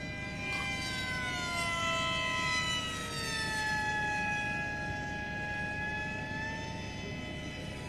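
Electric motors and propellers of FPV model aircraft whining at several pitches that drift slowly, falling through the middle and lifting again near the end, over a steady low noise.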